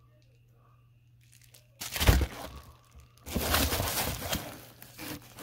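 Packing material crinkling and rustling inside a cardboard shipping box as the contents are handled. It comes in loud spells, the first starting sharply about two seconds in and a longer one about a second later.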